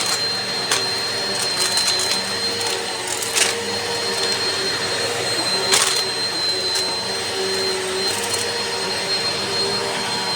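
Eureka PowerSpeed NEU181A bagless upright vacuum cleaner running steadily with a high whine, broken by a few short clicks.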